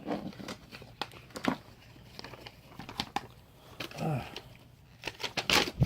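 Plastic packaging crinkling and rustling while small toy pieces are handled, with scattered light clicks and a louder rustle near the end. A brief vocal sound about four seconds in.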